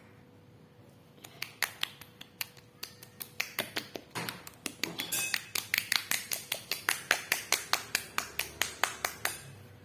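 Hands patting a wet face over and over: light, sharp slaps, scattered at first and then a steady run of about four a second, patting the water into the skin instead of towelling it dry.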